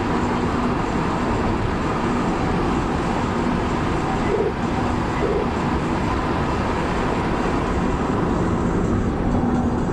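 Steady road and engine noise of a car driving along, with no siren sounding.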